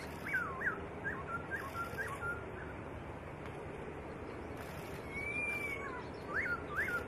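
Black-throated laughingthrush singing clear whistled phrases: a quick run of up-and-down whistles, a long held whistle about five seconds in, then three sharp rising-and-falling notes near the end.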